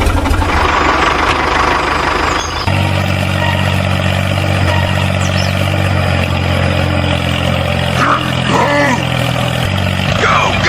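Tractor engine running with a rough, pulsing chug, settling about two and a half seconds in into a steady, even drone. A few short squeaky glides come near the end.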